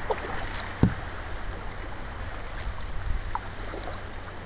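Water splashing and lapping around a paddled sit-on-top sea kayak (a Feelfree Moken 10 Angler), with steady wind rumble on the microphone. A single dull knock comes a little under a second in.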